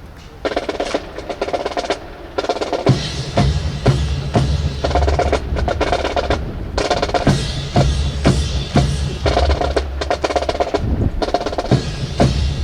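Marching drums playing a cadence. Rapid snare-drum strokes and rolls start about half a second in, and a bass drum joins about three seconds in.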